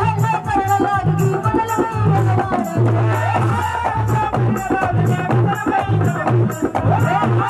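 Live Haryanvi ragni folk music: a held, wavering melody line over repeated low drum beats and an evenly spaced metallic rattle or jingle keeping the beat.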